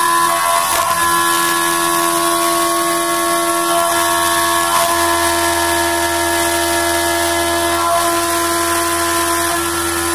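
CNC vertical milling machine cutting aluminium under flood coolant: a steady whine of the spindle and cutter at several pitches over a hiss of coolant spray and flying chips. The tone dips briefly a few times.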